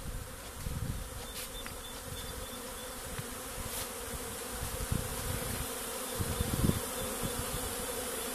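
Steady hum of a mass of honeybees flying around a bee pavilion during their spring cleansing flight. Irregular low rumbles run beneath it.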